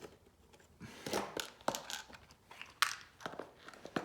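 Irregular clicks, scrapes and rustles from hands working parts loose on a Tascam Porta One ministudio as a circuit board is taken off. There are several sharp clicks about one and three seconds in.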